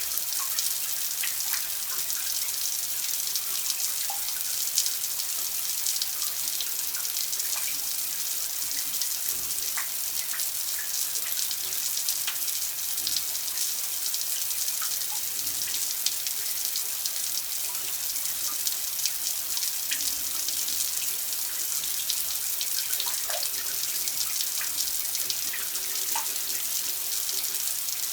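Running water pouring and splashing steadily, with scattered small droplet plinks through it.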